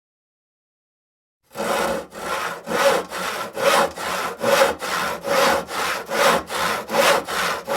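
Hand saw cutting wood in steady back-and-forth strokes, about two a second, starting about a second and a half in after silence.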